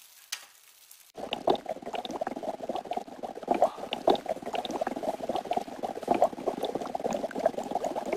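Soy milk boiling for tofu skin, a dense run of bubbling and popping that starts abruptly about a second in.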